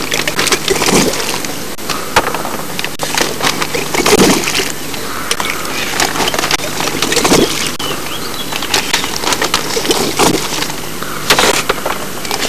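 Water slapping and sloshing against a small boat, with irregular knocks and clicks from gear being handled on board.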